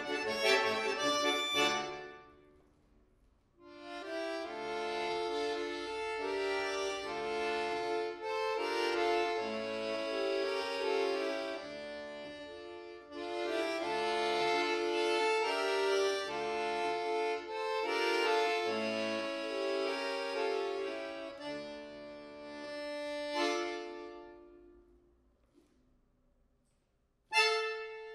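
Bayan (chromatic button accordion) played solo: a short passage that breaks off, then two long phrases of sustained chords and melody that die away into a pause, followed by sharp, loud chords near the end.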